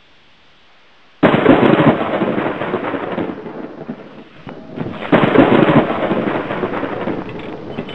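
Two thunderclaps: a sudden loud crack about a second in that rumbles and fades over a few seconds, then another about five seconds in.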